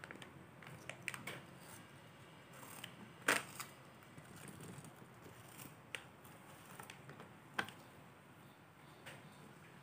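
Scattered short crinkles and clicks of a foil snack bag being handled. The loudest comes a little over three seconds in, with smaller ones spread through the rest.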